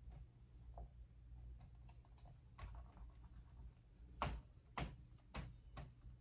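Dry-erase marker drawing and writing on a whiteboard: faint strokes, then a few sharper taps about half a second apart in the second half.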